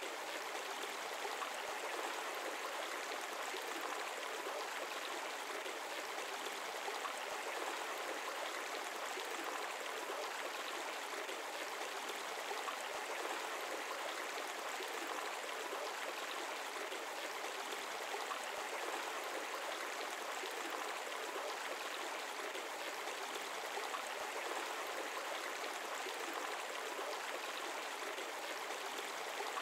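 A shallow stream running, a steady, even rush of flowing water.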